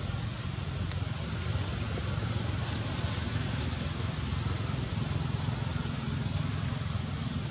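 Steady low rumble with an even hiss above it and a few faint ticks or rustles.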